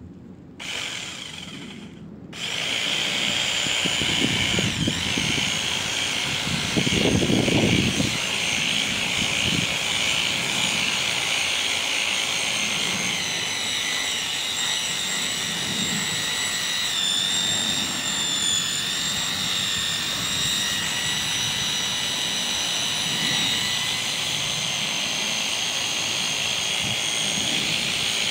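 A corded electric power tool running with a steady high motor whine, after a brief first burst it starts running continuously about two seconds in.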